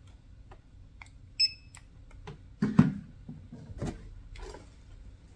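A cardboard model-kit box being grabbed and lifted off a counter: a few knocks and thumps, the loudest about three seconds in. A short electronic beep sounds about a second and a half in.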